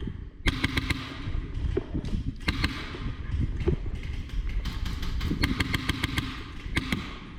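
Airsoft electric gun firing several full-auto bursts, each a fast rattle of shots over the buzz of the gearbox motor, the longest lasting about a second, with rumbling handling noise from a body-worn camera.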